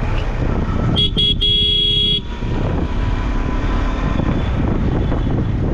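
A vehicle horn, most likely the riding motorcycle's own, sounds two short toots and then one longer blast about a second in. Under it the motorcycle's engine rumbles steadily and wind rushes over the microphone.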